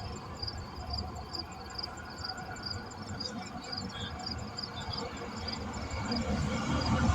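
Steady low rumble of highway traffic with insects chirping in a fast, even rhythm of about three high pips a second; a passing vehicle grows louder near the end.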